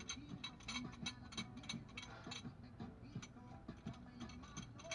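Rapid, regular mechanical clicking, about four or five clicks a second, from the tool being worked to press the brake caliper pistons back into the caliper.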